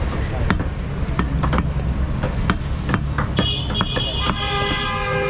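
Butcher's cleaver chopping beef on a wooden log chopping block: sharp, repeated chops, a few each second, over a steady low traffic rumble. About three and a half seconds in, a vehicle horn sounds and is held for nearly two seconds.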